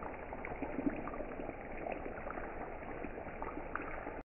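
Floured beef meatballs sizzling and crackling steadily in hot oil in a frying pan, sounding muffled; the sound cuts off suddenly near the end.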